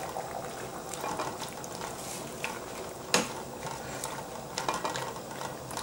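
A spoon stirring chopped vegetables and tomato sauce in a Cookeo multicooker's pot, scraping with a few knocks against the pot, the loudest about three seconds in, over a faint sizzle from the pot in browning mode.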